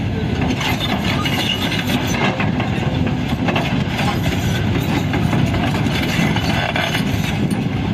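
Volvo crawler excavator working: its diesel engine runs steadily under load while the steel tracks and bucket clank and rattle on rock and dirt.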